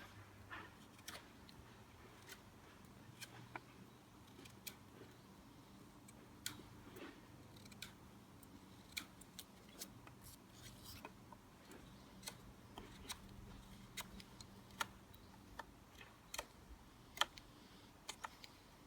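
Knife blade whittling green wood, sharpening the points of a fishing spear's prongs: irregular short, sharp cutting clicks, about one or two a second.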